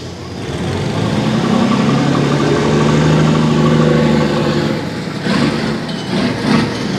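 A motor vehicle's engine running at a steady pitch, growing louder over about a second, holding, then fading out about two-thirds of the way through; a few short noisy bursts follow near the end.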